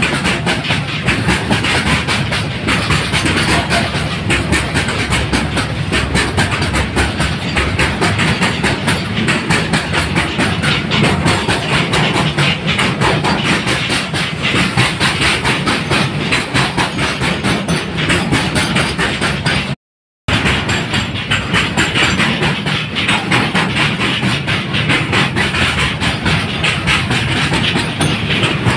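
A long freight train's loaded wagons rolling past at close range, with a steady, dense clatter of steel wheels over the rails. The sound cuts out completely for about half a second some two-thirds of the way through.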